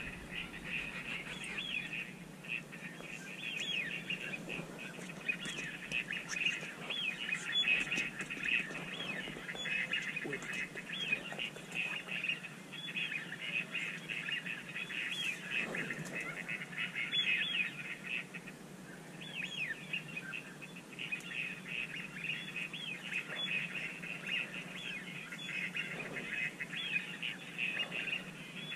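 A dense, continuous chorus of duck calls, many high chirping whistles overlapping, with a short break a little past halfway. A steady low hum runs underneath.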